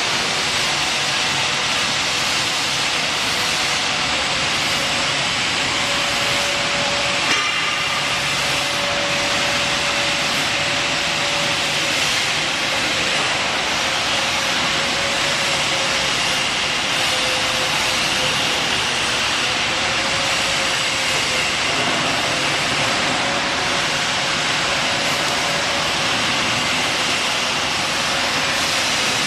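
Electric steel bar cutting machine running steadily, a constant mechanical hum and hiss with one sharp click about seven seconds in.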